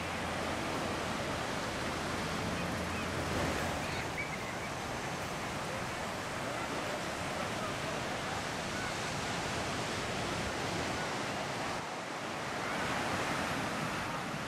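Steady rush of ocean surf breaking on the beach, mixed with wind.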